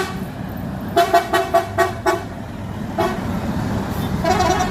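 Bus horn sounding a quick run of about six short toots on one steady pitch, then further short toots near the end, over the rumble of engines and traffic.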